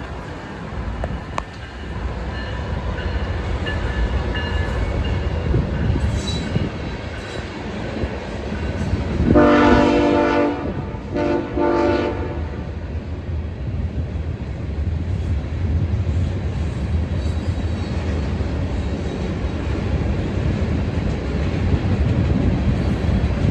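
Train running past with a steady low rumble; about nine seconds in the locomotive's horn sounds two blasts, a longer one then a shorter one.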